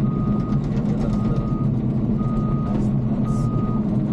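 Bulldozer reversing: its backup alarm beeps about once a second, four times, over the steady running of its diesel engine.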